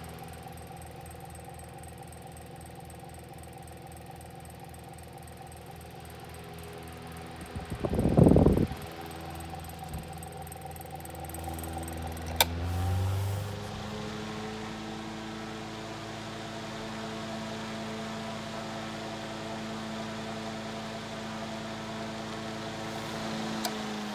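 1905 Westinghouse Pancake desk fan's electric motor humming steadily with its blades turning. A loud thump comes about eight seconds in, then a sharp click of the speed switch on the base about twelve seconds in. After the click the hum rises in pitch as the fan speeds up and settles into a steady, higher hum.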